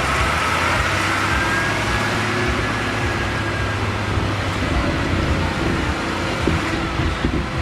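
Silage harvesting machinery running steadily, an engine hum with a faint high whine that drifts slightly in pitch.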